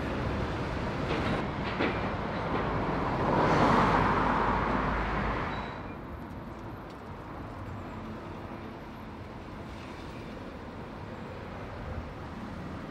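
Street traffic noise, with a vehicle passing three to five seconds in as a rising and falling swell of road noise. About six seconds in the level drops to a fainter, steady background hum.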